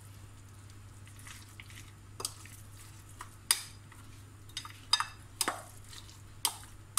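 A spoon stirring and folding shredded cabbage and carrot in mayonnaise dressing in a glass bowl, with irregular sharp clicks as the spoon knocks against the glass.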